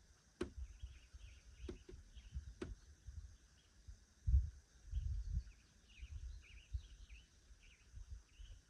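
Woodland ambience: small birds chirp repeatedly over a faint steady insect hum and an uneven low rumble. Three sharp clicks or snaps come in the first three seconds.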